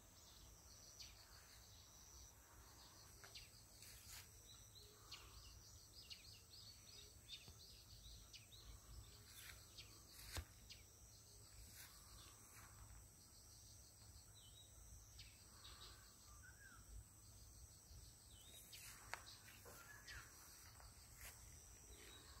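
Faint birds chirping over a low outdoor background hiss, with a couple of brief faint clicks.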